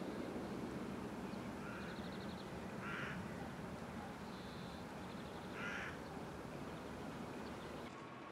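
A crow cawing twice, about three seconds in and again nearly three seconds later, over a steady outdoor background hiss, with faint higher chirping from small birds.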